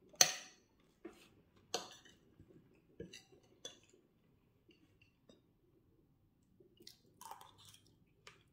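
A metal spoon clinks and scrapes against a ceramic plate while scooping food, with a handful of sharp clinks in the first few seconds, the loudest just after the start. Softer eating and chewing sounds follow later.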